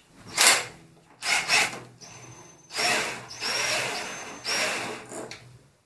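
Cordless power driver spinning in two short bursts, then a longer run of about two and a half seconds with a high motor whine that stops and starts a few times, unscrewing a bolt from the motorcycle's top trim.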